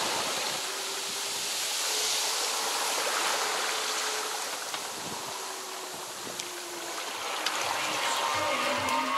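Water rushing and hissing along the hull of a 30-foot sailing yacht under way, swelling and easing as the waves pass.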